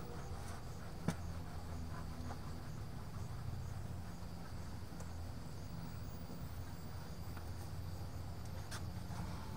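Insects chirping steadily over a low hum, with a sharp click about a second in.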